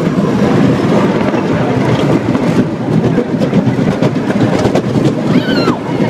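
Amusement park ride car rolling along its track, a loud steady rumble with clattering, and a brief squeal about five seconds in.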